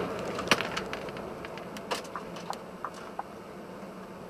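Car crash heard from inside a following vehicle: a sharp bang about half a second in, then a scatter of light clicks and knocks, over engine and road noise that eases off as the vehicle brakes.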